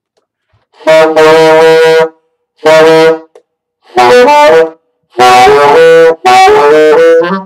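Mendini tenor saxophone being played: four short, loud phrases of a few changing notes each, with brief pauses between them.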